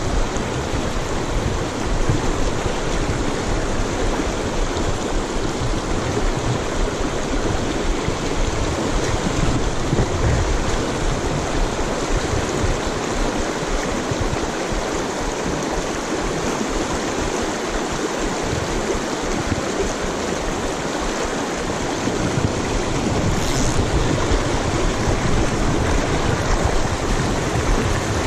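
Shallow river rushing steadily over cobbles and through riffles, heard up close as an even, unbroken hiss of running water.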